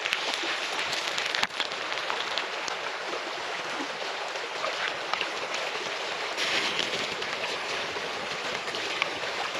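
Hot oil sizzling and a wood fire crackling as chopped garlic fries in a pan and a whole fish roasts over the open flames: a dense, steady hiss full of fine pops.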